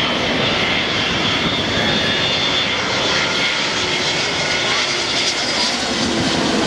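Twin-engine wide-body jet freighter passing low overhead on final approach, gear down: a loud, steady jet roar with a thin high whine over it.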